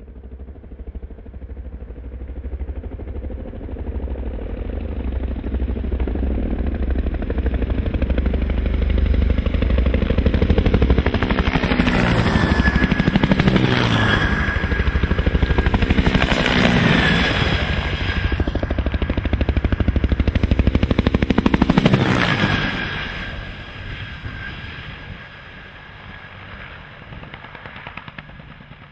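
Bell UH-1 'Huey'-type helicopters making low passes. The rapid beat of the two-bladed rotors and the turbine whine grow louder, and the pitch drops three times as helicopters pass close, about 12, 17 and 22 seconds in. Past about 23 seconds the sound falls to a quieter, more distant helicopter.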